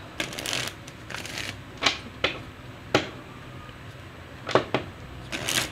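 A deck of tarot cards being shuffled by hand: short rustling riffles, then sharp clicks of cards knocking together at irregular intervals.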